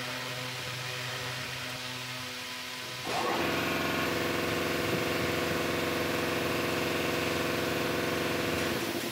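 A machine running with a steady hum, a louder run of it starting suddenly about three seconds in and stopping just before the end.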